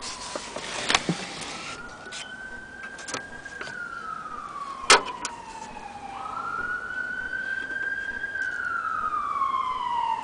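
An emergency-vehicle siren wailing, its pitch rising and falling slowly and repeatedly. A few sharp clicks and knocks of the metal projector being handled, the loudest about five seconds in.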